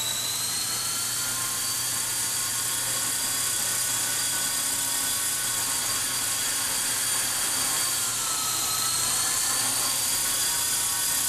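A 450-size radio-controlled helicopter hovering: a steady high-pitched whine from its motor and rotor head. The pitch sags briefly about eight seconds in, then comes back up.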